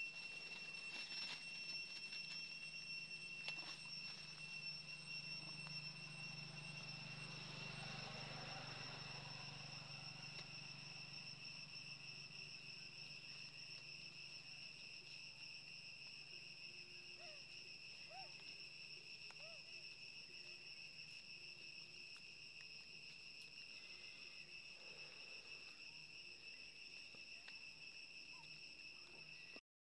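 Faint, steady, high-pitched drone of forest insects holding one tone throughout. A low hum swells and fades about a quarter of the way in, and a few short faint chirps come just past the middle.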